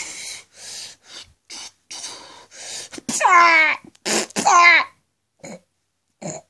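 Mouth-made battle sound effects from a person's voice: a string of short breathy hissing bursts, then two loud sounds falling in pitch about three and four seconds in, then a few brief bursts near the end.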